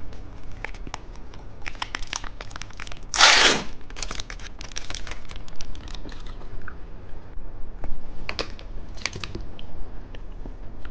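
Candy packaging being handled: a scatter of crinkles and small clicks, with one short tearing rip about three seconds in.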